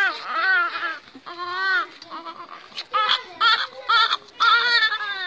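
Baby crying: a string of about eight short wailing cries, each rising and then falling in pitch.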